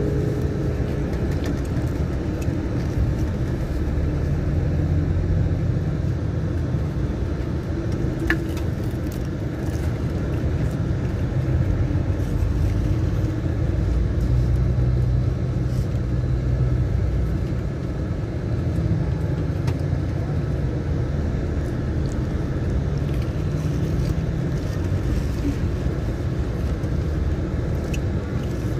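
A car driving along a town street: steady engine and road rumble, heard from inside the car.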